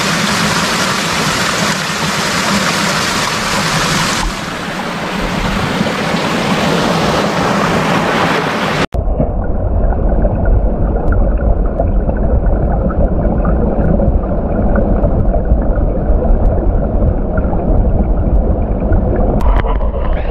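Mountain stream water rushing, a steady loud hiss. About nine seconds in it cuts off abruptly and gives way to a vehicle driving, a heavy low rumble.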